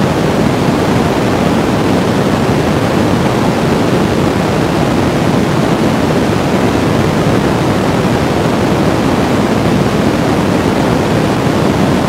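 Experimental noise music: a loud, dense, unchanging wall of static, heaviest in the low and middle range, with no beat or melody.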